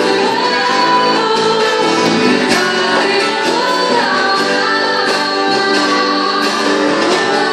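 A church music group singing a worship song with instrumental accompaniment, the sung melody running on without a break.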